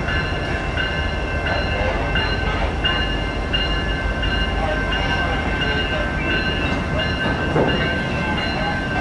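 Freight train cars, a caboose and then flatcars, rolling slowly past with a steady low rumble of wheels on rail. A grade-crossing bell rings repeatedly over it, a high, pulsing ring.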